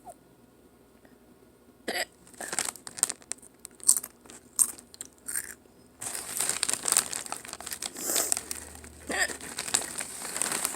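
Doritos crunching and a foil-lined Doritos bag being handled: sharp separate crunches start about two seconds in, then from about six seconds the bag crinkles continuously as a hand rummages in it.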